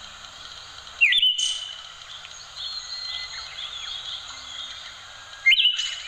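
Thrush (anis kuning) singing: two loud, short whistled phrases that sweep sharply upward and then hold a high note, about a second in and again near the end, with softer chirps between them over a steady background hiss.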